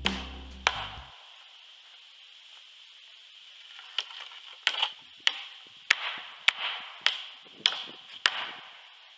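Hammer driving nails into the shed's rough-sawn wooden framing: a steady run of about eight sharp strikes, roughly two-thirds of a second apart, in the second half. Background music fades out in the first second.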